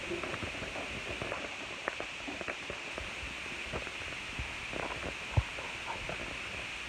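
Hand rubbing and handling a painted plastic animation cel: faint scattered rustles and small clicks over a steady hiss, with one louder knock about five seconds in.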